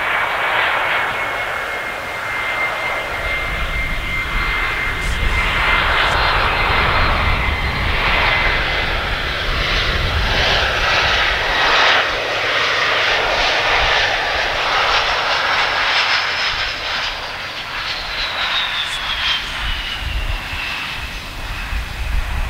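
Embraer E175's twin CF34 turbofan engines on landing approach: a steady jet whine over a rushing noise that grows louder as the aircraft nears. About three-quarters of the way through, the whine drops in pitch as the aircraft passes by, just before touchdown.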